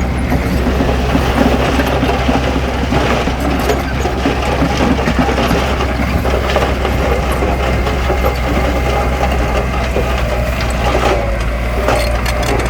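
Heavy diesel construction machine running steadily, with a constant low engine drone and rapid clattering over it.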